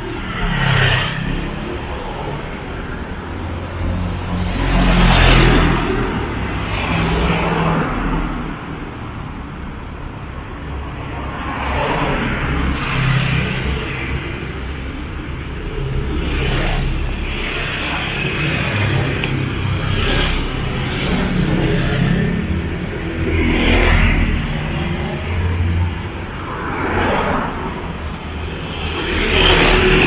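Road traffic: motor vehicles passing close one after another every few seconds, each rising and fading over a steady low engine rumble.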